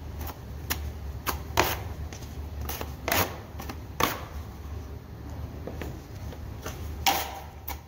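Steel drywall knife scraping and clacking against a mud pan as joint compound is loaded onto the blade, then spread onto the wall: a run of short sharp scrapes and clicks, about one or two a second.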